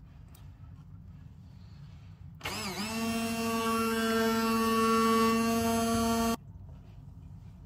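Hand-held immersion blender running inside a hollowed pineapple, blending the fruit's flesh. The motor starts about two and a half seconds in with a brief wavering pitch, runs as a steady whine for about four seconds, then cuts off suddenly.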